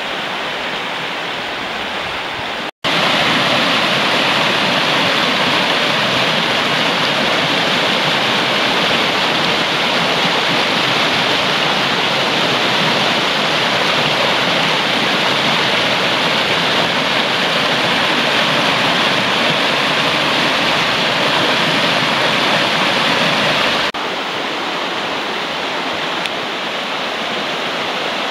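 Mountain stream rushing over rocks and small cascades, a steady rush of water. It cuts out for a split second about three seconds in, comes back louder, and drops to a somewhat quieter flow near the end.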